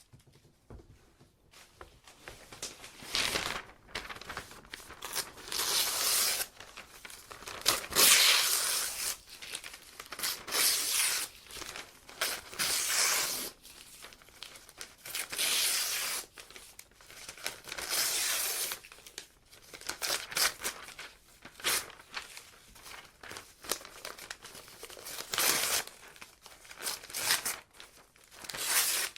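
Paper being ripped by hand, tear after tear with short pauses between, some rips quick and some drawn out, with a little crinkling as the sheets are handled.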